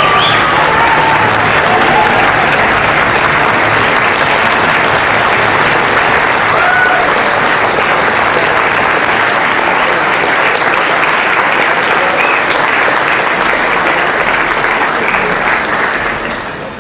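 Audience applauding steadily, with a voice or two calling out over the clapping; the applause fades away near the end.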